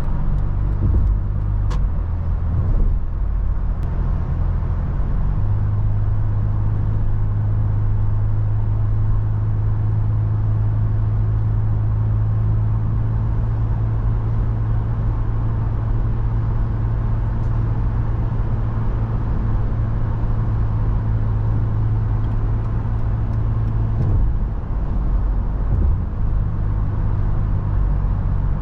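Toyota FJ Cruiser on the move: a steady low drone from the vehicle over a haze of road and wind noise. The drone grows stronger about five seconds in and drops back a few seconds before the end.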